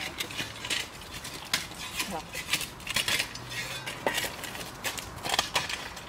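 A long bar scraping and knocking at the glowing opening at the base of a bloomery iron-smelting furnace, with hard clinks of charcoal and slag scattered throughout.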